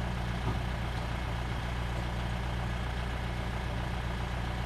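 Safari jeep's engine idling, a steady low rumble.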